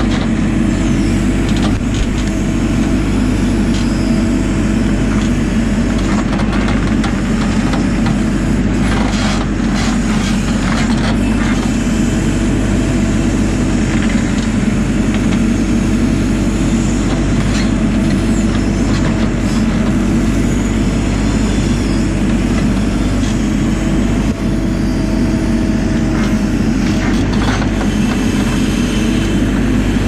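JCB 4CX backhoe loader's diesel engine running steadily under hydraulic load as the rear backhoe drags its bucket across loose gravel, with gravel scraping and crunching at times, most around ten seconds in.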